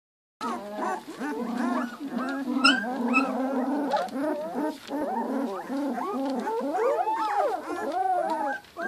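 A litter of two-week-old Giant Schnauzer puppies whining and squeaking without pause, many short rising-and-falling cries from several puppies overlapping.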